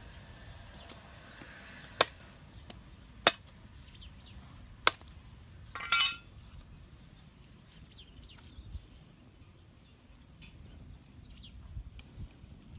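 A few sharp, separate knocks or clicks, one to one and a half seconds apart, then a short rattling clatter about six seconds in, over faint outdoor background.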